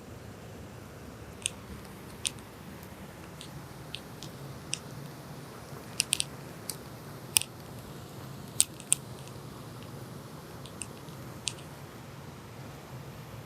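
Steady rush of the river and waterfalls below, with about fifteen scattered sharp clicks and ticks over it, most of them bunched together in the middle.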